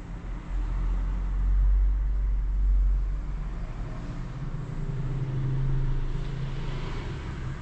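Low rumble of a motor vehicle engine, swelling about half a second in and easing after about three seconds, then settling into a steadier low hum.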